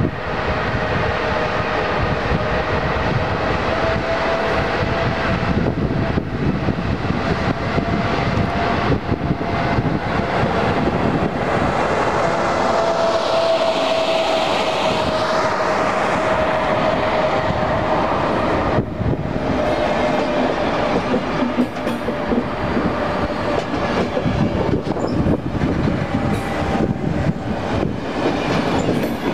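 ČD class 371 electric locomotive passing close by, then its train of passenger coaches rolling past on the track. A steady tone runs under the train noise and fades about two-thirds of the way in.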